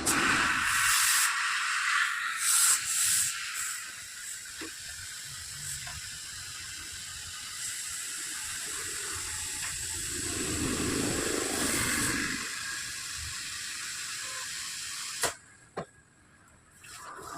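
Compressed air hissing steadily with a few louder surges at first, cutting off abruptly about fifteen seconds in.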